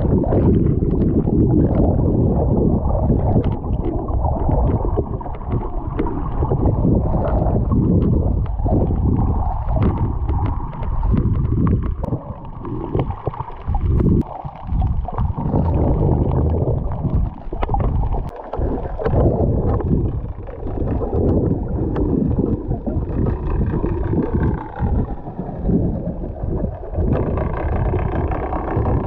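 Underwater sound through a snorkeller's camera: muffled, surging water movement and gurgling bubbles. A faint wavering whine joins near the end.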